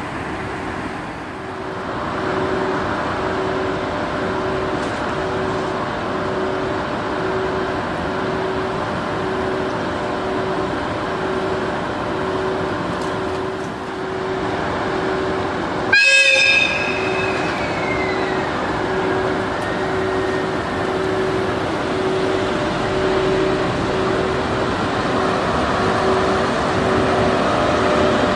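Japanese level-crossing warning bell chiming in even pulses while an EF81 electric locomotive rumbles over the crossing. About halfway through, the locomotive gives one short, loud horn blast whose pitch sags as it dies away.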